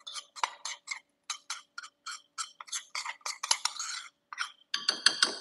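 Metal spoon scraping and tapping against the inside of a bowl while scooping out thick batter: a quick, uneven series of short scrapes and clinks, about three a second, with a louder clatter near the end.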